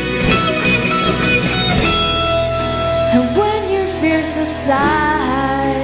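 Electric guitar solo on an Ibanez guitar over a band backing: a quick run of short notes, then a long held note and notes bent up and down in pitch.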